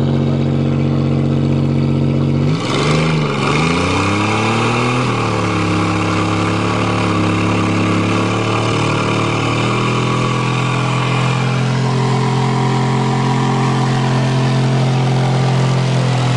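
Buick 3.8 V6 engine running at a steady fast speed; about two and a half seconds in its speed dips sharply and surges a couple of times, then settles to a steady, lower running speed.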